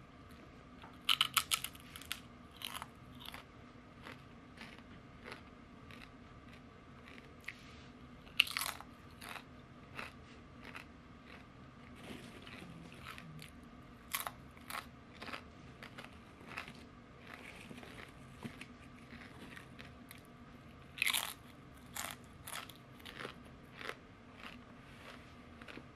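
Ridged potato chips bitten and chewed. There is a sharp crunch at each bite, about a second in, near 8 seconds, near 14 seconds and near 21 seconds, with smaller crunches of chewing between.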